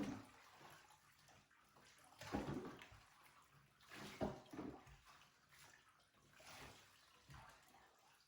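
Faint splashing and sloshing of bathwater in a tub as a dog is washed, in several soft swishes a second or two apart.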